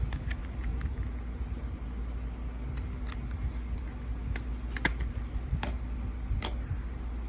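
Scattered light clicks and taps of hard plastic breast-pump parts being handled and set down, with a few sharper clicks in the second half, over a steady low hum.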